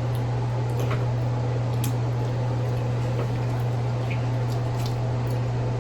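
Steady low hum with a faint hiss, and a few faint, small clicks scattered through it.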